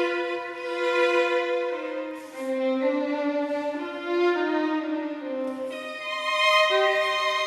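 Background music: a slow melody of long, sustained notes, each changing pitch every second or two.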